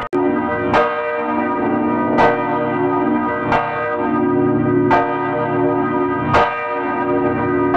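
Bells ringing: a struck peal about every second and a half, each strike's ringing carrying on under the next. There is a brief break in the sound just after the start.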